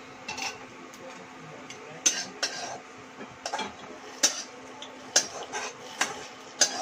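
Metal cooking utensils clinking and scraping against steel pots and an aluminium wok: about ten sharp clinks at irregular intervals.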